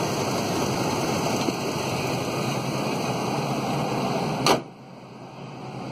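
A 2005 Dodge Dakota's engine idling with a steady hum, then a single sharp bang about four and a half seconds in as the hood is slammed down. After the bang the engine sound is much quieter, and the hood has not latched.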